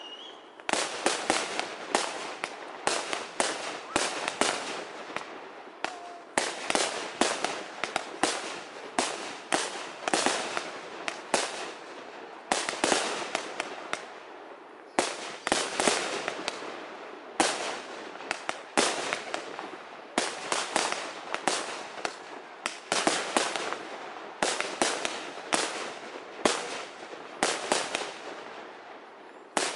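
Aerial fireworks display: shells launching and bursting in a rapid, continuous series of sharp bangs, about one to two a second, each trailing off in an echo, with a short pause about halfway through.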